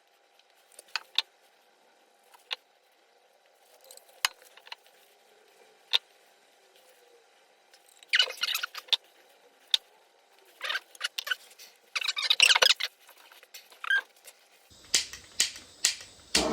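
Scattered light clicks and taps, with two short scraping bursts partway through, from copper pipe and fittings being handled while flux is applied to the joints before soldering.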